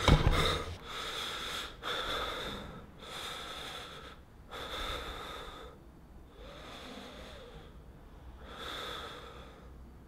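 A man breathing heavily and raggedly, about six long breaths a second or so apart, getting fainter toward the end, after a brief knock of the camera being handled at the start.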